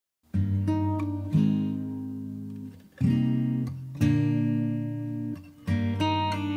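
Acoustic guitar strumming slow chords, each left to ring and fade before the next, starting out of silence just after the start: the instrumental opening of a worship song.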